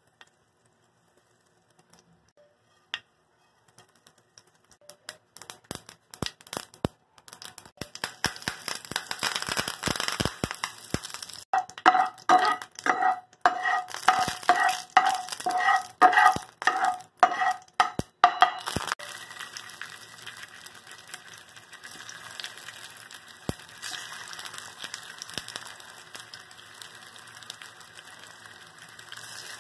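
Mustard seeds crackling and popping in hot oil in a non-stick pan, the pops starting sparse and building to a dense crackle, with curry leaves spitting. Midway a spatula scrapes around the pan, squeaking about twice a second over the crackle. About two-thirds of the way through it changes suddenly to an even sizzle of raw banana slices shallow-frying.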